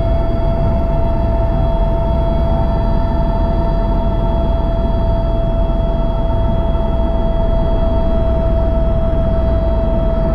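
Tour helicopter in steady cruise heard from inside the cabin: a constant deep rumble from the rotor and engine with a steady high whine over it, unchanging in level.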